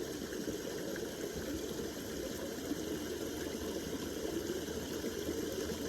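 Small creek water trickling steadily over the edge of little granite stones.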